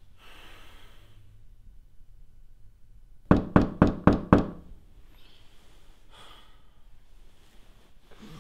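A rapid burst of about six loud knocks, a second and a half past the three-second mark, each ringing briefly in a small room.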